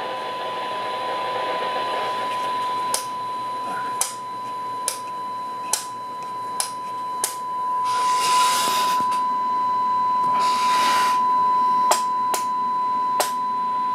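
Steady 1 kHz test tone from the Kenwood TM-241E transceiver's speaker, demodulated from an FM signal-generator carrier during a receive-sensitivity check, over a background of hiss. Sharp clicks sound at roughly one-second intervals through the middle and again near the end, and two short bursts of louder hiss come about two-thirds of the way in.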